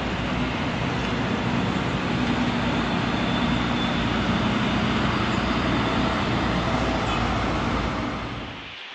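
Strong whirlwind wind blowing across the microphone: a steady rushing noise with a low rumble. It cuts off abruptly near the end.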